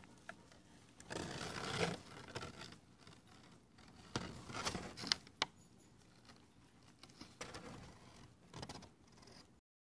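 Baby squirrels rustling and scratching about in a fabric cage hammock, in short irregular bouts, with one sharp click a little past the middle.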